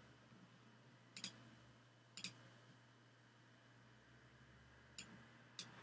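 Faint computer mouse-button clicks, about four, spaced irregularly, over faint room hiss.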